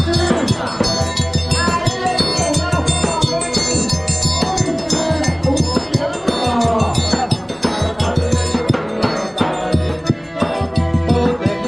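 Upbeat music with a heavy bass beat, percussion and a sung melody.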